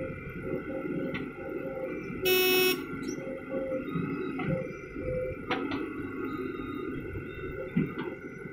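Diesel engines of a JCB 3DX backhoe loader and a Mahindra tractor running steadily, with one short vehicle horn toot about two seconds in.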